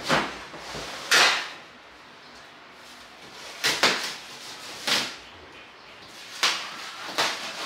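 Protective plastic stretch-wrap being pulled and torn off a sofa: a series of short, sharp rustles and rips, a second or more apart.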